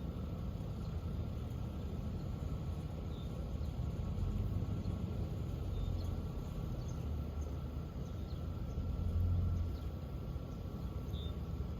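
Outdoor background: a low, steady rumble that swells a little twice, with a few faint, short high chirps.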